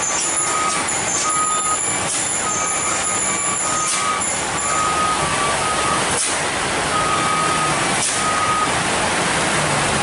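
Heavy truck running through a steep hairpin over a steady hiss of rain, with a reversing alarm beeping repeatedly at a high pitch until about nine seconds in.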